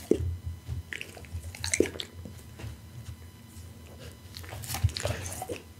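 Pit bull licking its lips and chewing close to the microphone: short wet smacks and clicks, three spaced out early on and a cluster near the end.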